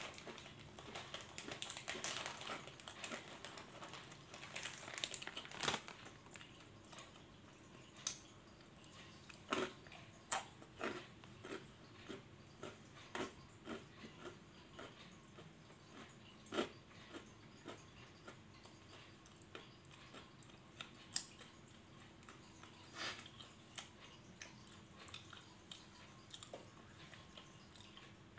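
A person chewing a crunchy snack close to the microphone: irregular crunches, thick in the first few seconds, then spaced a second or more apart.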